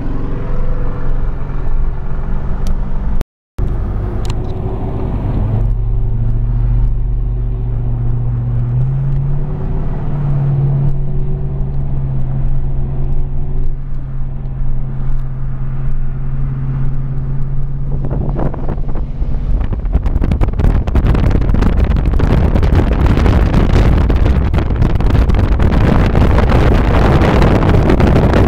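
Car engine running steadily at highway cruising speed, heard from inside a moving car, with its drone stepping slightly higher about ten seconds in. From about eighteen seconds in, loud wind and road noise from driving at speed take over.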